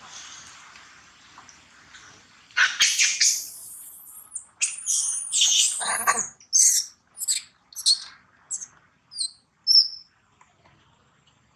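Young long-tailed macaque screaming in distress: faint at first, then from about two and a half seconds in a run of loud, shrill screeches that break into shorter squeals and stop about ten seconds in.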